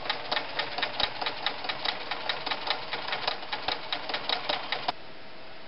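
White model 1077 'Jeans Machine' sewing machine stitching a zigzag through eight layers of denim with a jeans needle, the needle punching through in an even clatter of about five stitches a second. The stitching stops a little before the end.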